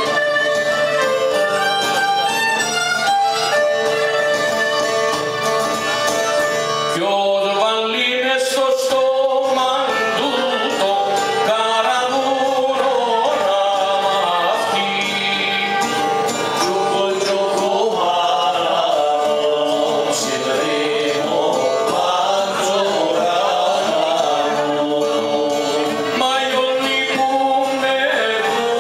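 Cypriot traditional folk melody (a 'fonē') played live on violin and lute over a frame drum's steady beat. About seven seconds in, a man's voice enters, singing the melody with gliding, ornamented lines over the instruments.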